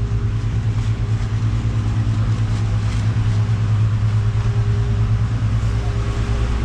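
Steady low mechanical hum of a liveaboard dive boat's onboard engine machinery, heard from inside the boat.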